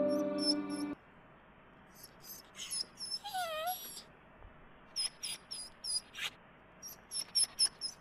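Background music cuts off about a second in. A cat then gives one short, wavering call about three seconds in, typical of a cat in heat. Around it, short high-pitched chirps repeat in quick clusters.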